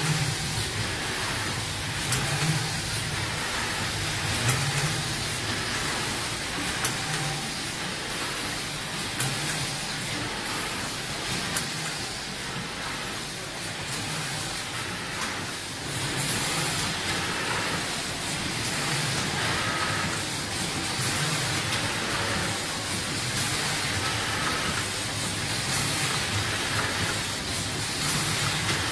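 Multi-row packing machine running: a steady hiss of compressed air with short clicks and clunks, and a low pulse recurring about every two seconds as it cycles.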